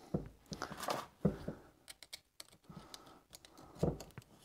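Light, scattered clicks and ticks of small metal tools and parts being handled at a workbench, with a couple of duller knocks, the loudest near the end.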